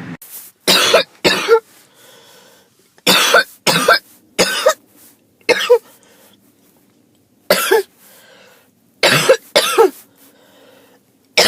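A person with a cold coughing harshly: about ten short coughs in clusters of one to three, with faint breaths drawn in the pauses between clusters.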